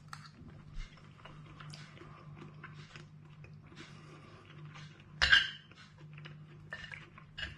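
A man chewing and eating tender barbecue spare ribs close to the microphone: soft, irregular wet mouth clicks and smacks, with one louder, sharper sound about five seconds in.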